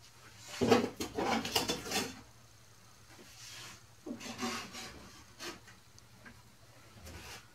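Wood scraping and knocking as plywood pieces are handled and fitted against a plywood cabinet frame, in two bursts: a louder, longer one about a second in and a shorter one about four seconds in, with a few light knocks between.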